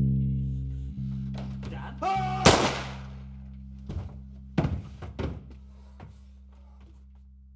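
Low, heavy soundtrack chords, struck again about once a second and fading between strikes. About two and a half seconds in comes a loud crash with a rising shout over it, then a cluster of knocks and thuds around five seconds.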